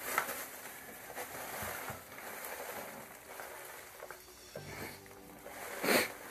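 Rustling and scraping of packaging being handled and pulled open, with scattered light knocks and a louder scrape near the end.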